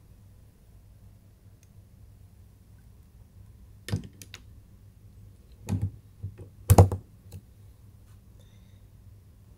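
A four-port USB wall charger being plugged into a wall socket, its plastic body and prongs clicking and knocking against the socket face. The clicks come between about four and seven and a half seconds in, the loudest near seven seconds as the plug pushes home.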